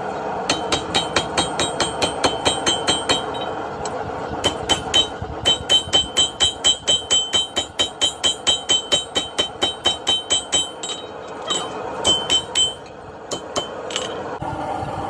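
Blacksmith's hand hammer striking hot steel on an anvil in quick runs of about three to four blows a second, each blow ringing, with short pauses between runs.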